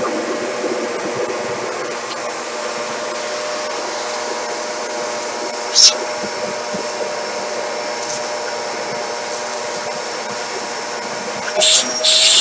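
Vax Air Mach Force 1600 W upright vacuum cleaner running steadily after a service and clean, its motor giving a steady whine. Short, louder hissing rushes of air come about six seconds in and again near the end.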